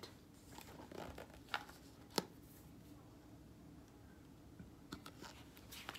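Faint handling noises from a picture book being held and moved: a few light clicks and taps of paper and fingers, one sharper click about two seconds in, over quiet room tone.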